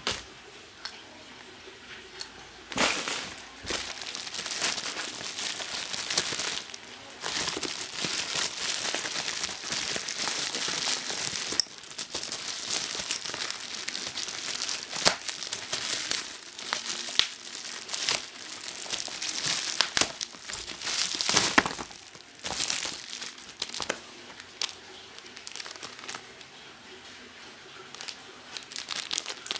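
Plastic bubble-wrap packaging crinkling and rustling as it is handled and unwrapped, in long broken stretches from about three seconds in until a little past twenty seconds, then quieter scattered rustles and clicks.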